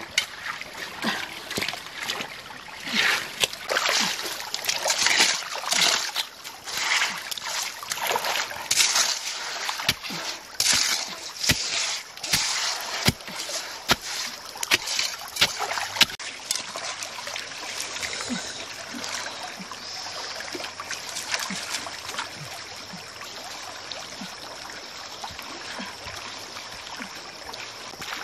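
Wet mud and water being dug and scooped by hand and with a stick in a shallow stream: irregular splashes and squelches, busiest in the first half, giving way to the steadier trickle of flowing water.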